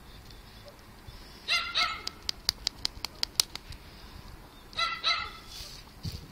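An animal's short, high calls, two in quick succession about a second and a half in and two more near the end. Between them comes a quick run of about eight sharp clicks.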